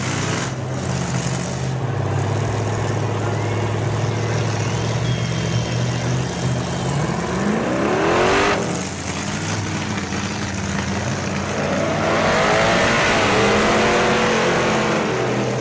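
High-horsepower truck engine running with a steady low rumble, then revved hard twice: once rising and cutting off about halfway through, and again in a longer rev near the end.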